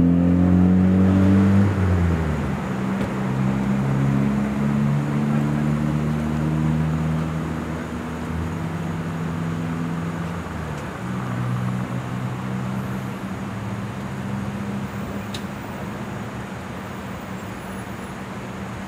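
A vehicle engine idling, a steady low hum with several pitched tones; the pitch drops about two seconds in and shifts again around ten seconds, and the sound gradually gets quieter.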